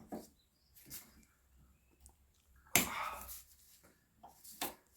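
Pliers working an old, bent split pin out of a castle nut: a few short clicks and scrapes of tool on metal, with one sharp, louder click about three seconds in.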